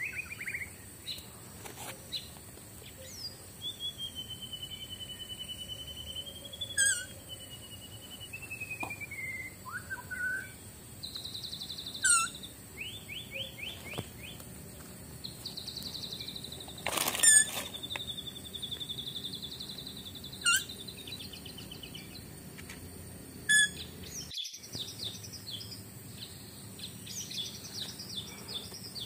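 Rainforest birds calling. A long wavering whistle starts about four seconds in, and sharp calls sweep steeply downward every few seconds, with rapid pulsing trills between them. A brief knock comes about halfway through.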